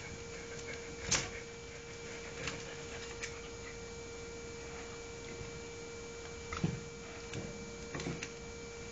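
Scattered light knocks and clicks from a Samoyed and a ferret playing and nipping at each other through cage bars, the loudest about a second in and a small cluster near seven seconds, over a steady hum.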